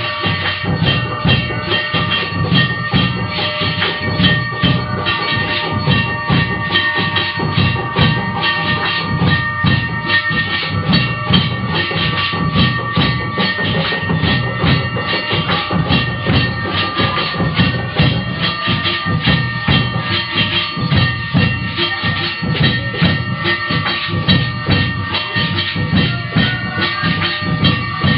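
Fast, steady rhythmic percussion with several high ringing tones held throughout.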